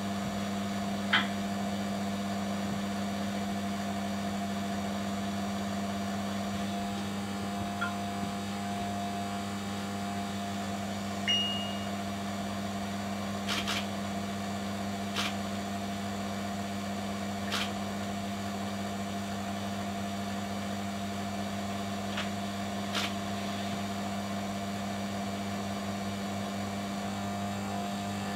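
Small electric rod-turning motor running with a steady low hum, turning the rod blank while its epoxy is warmed. A few faint clicks come now and then, the sharpest about a second in.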